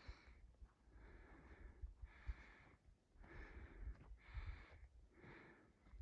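Faint, heavy breathing close to the microphone, about one breath a second, from a person out of breath while hiking a rocky trail. Soft low thuds of footsteps sound underneath.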